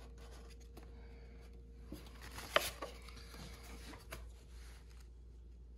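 Faint handling of a foam model jet's fuselage: hands rubbing and shifting the airframe while the glued fin is pressed in and the model is picked up, with a short sharp click a little over two and a half seconds in. A low steady room hum runs underneath.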